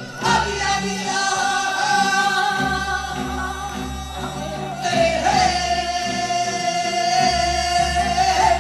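Amplified Korean folk-style singing from the stage: a voice holds two long notes of several seconds each, over musical accompaniment with a low, regular beat.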